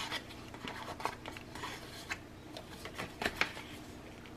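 Paper and thin card being handled on a tabletop: soft rustles with a few light taps and ticks, a small cluster of them about three seconds in.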